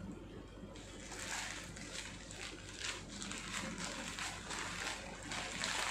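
Plastic courier mailer bag crinkling and rustling as it is cut with scissors and pulled open by hand, a quick irregular run of crackles starting about a second in.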